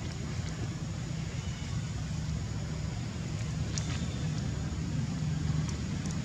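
Steady low rumble of outdoor background noise, with a faint click about four seconds in.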